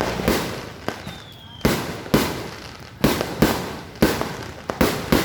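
Aerial fireworks bursting in quick succession: sharp bangs, a dozen or so in five seconds, some louder than others, each dying away in an echoing tail.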